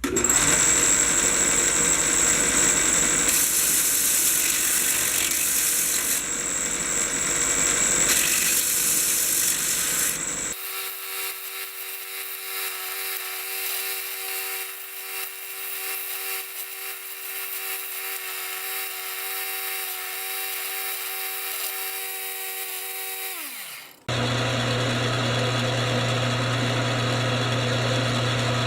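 Shop power tools running in three abrupt sections. First a noisy cutting or drilling tool with a steady high whine. About ten seconds in it switches to a motor running with a steady whine, which winds down in pitch near the end of that section. After that comes a steady low machine hum.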